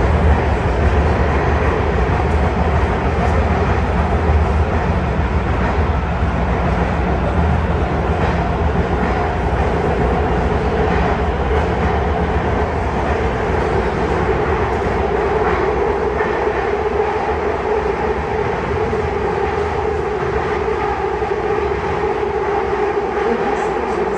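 MARTA rail car running between stations, heard from inside the car: a continuous rumble of wheels on rail with a steady hum, slowly getting quieter.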